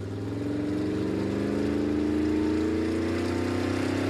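Motor vehicle engine running as it approaches, growing louder over the first two seconds and then holding steady, its pitch slowly rising.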